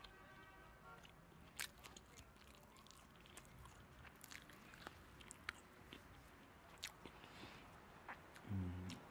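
Quiet, sparse crackles of crinkled paper wrapping being handled, with a person chewing food. Near the end there is a short low hum, the loudest sound here.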